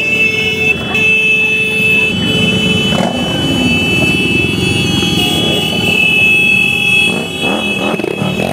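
A procession of motorcycles and scooters riding past one after another, their engines running at low speed, with a steady high-pitched tone held over the engine noise.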